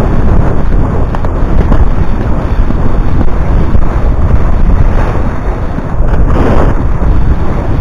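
Loud, steady wind buffeting a helmet-mounted camera microphone, with a brief dip in level about six seconds in.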